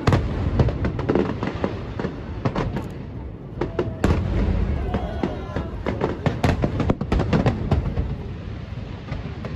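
Aerial fireworks bursting and crackling: many sharp bangs in quick, uneven succession, with heavier booms about four seconds in.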